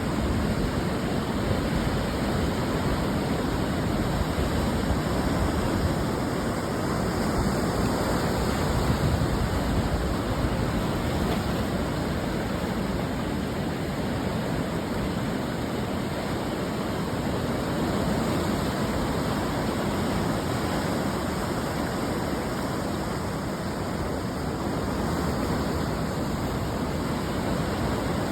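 Ocean surf breaking on a beach shore: a continuous wash of waves with gentle swells in loudness and no distinct single crash.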